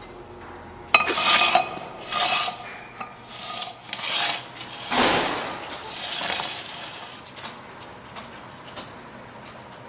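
Hard objects scraping and clinking in a run of irregular strokes, starting suddenly about a second in and dying away after about six seconds.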